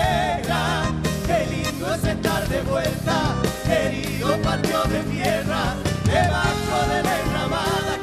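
A live band plays an Argentine folk song: male voices sing over acoustic guitars and drums.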